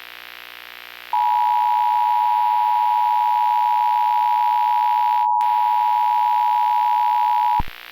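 Emergency Alert System attention signal: a loud, steady two-tone beep that starts about a second in and cuts off shortly before the end, over a faint steady electrical hum.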